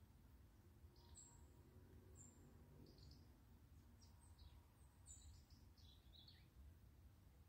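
Faint, scattered chirps of small birds over a low, steady background rumble, close to silence; the chirps come thickest about five to six seconds in.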